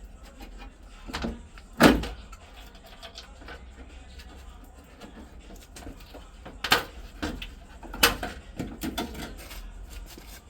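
Scattered sharp knocks and clunks, with three loud ones about two, seven and eight seconds in and smaller taps between.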